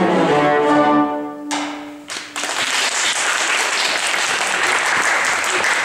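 A cello ensemble plays its final chords, the last note held and fading out. About a second and a half in, audience applause breaks out and continues.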